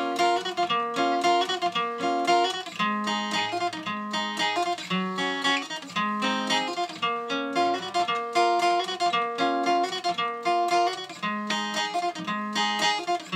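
Acoustic guitar playing a fast, repeating picked figure in Congolese rumba style: quick plucked notes over a low note that comes back about once a second.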